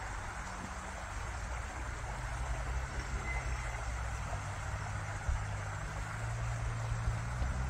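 Small open stream running between snow-covered banks, a steady flowing hiss, over a low steady rumble that grows a little louder about two seconds in.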